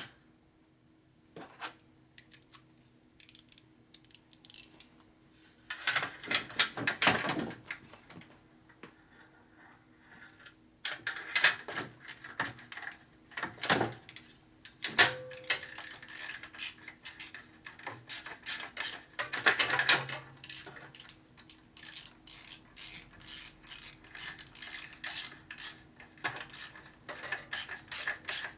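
Metal hand tools clicking and clinking during work on a motorcycle engine: scattered knocks at first, then runs of quick, evenly spaced clicks through the second half.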